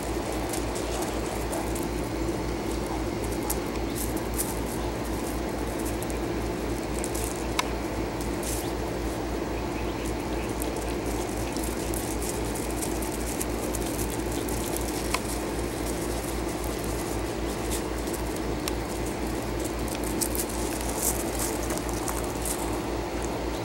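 Small dogs padding and scuffling over gravel and gnawing chew bones: scattered light clicks and scuffs over a steady low hum.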